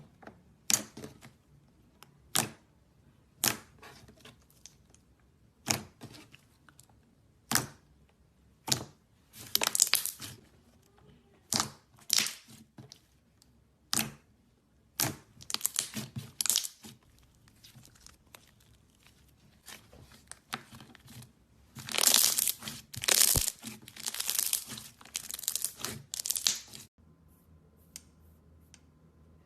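Slime being handled, giving sharp pops about once a second, then denser crackling bursts near the end.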